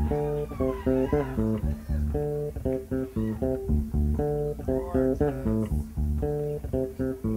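Live band playing an instrumental intro: a plucked guitar and bass riff with a steady beat, repeating short notes.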